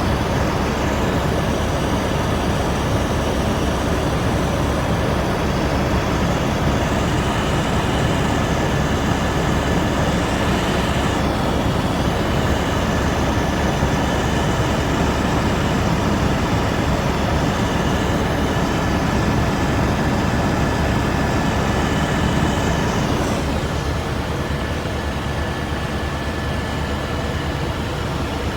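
Steady loud helicopter noise, heard from inside the cabin: a dense engine and rotor rumble with a thin high whine over it, easing off slightly about 23 seconds in.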